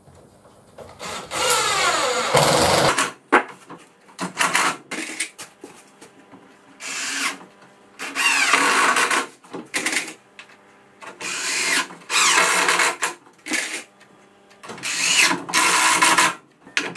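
Cordless drill-driver driving screws into softwood pine, in about four runs of a second or two, its motor whine sliding in pitch as it speeds up and slows, with short knocks and clicks of wood being handled between the runs.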